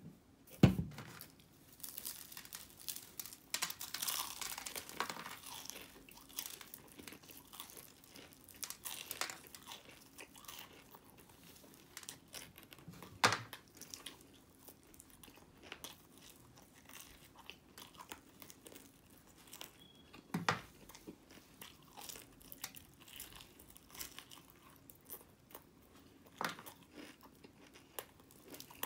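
Close-miked crunching and chewing of breaded fried chicken wings, with the crust crackling as the wings are pulled apart and bitten. A sharp knock comes just under a second in, and a few more louder knocks come later.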